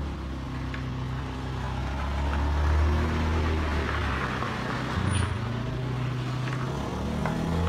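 A motor vehicle engine running, a low drone that shifts in pitch several times, with soft squelching of hands working shampoo lather through wet hair.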